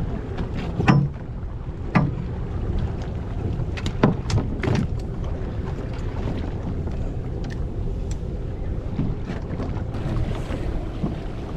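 Steady wind noise on the microphone and sea rumble aboard a small fishing boat, with a few sharp knocks on the deck about one, two and four seconds in.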